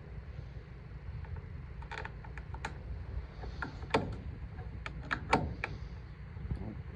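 Scattered metallic clicks and clinks of hand tools working bolts on a square baler's knotter, with a couple of sharper knocks in the second half, over a low steady rumble.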